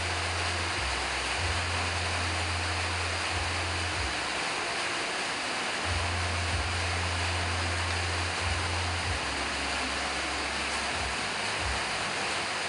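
Steady, even hiss with a low hum that cuts in and out every second or two.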